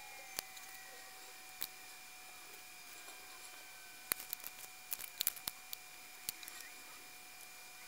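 Small, sharp clicks and taps from tweezers and a plastic solder-paste syringe handled against a circuit board and tile work surface, with a quick run of them between about four and six seconds in. A faint, steady whine lies underneath.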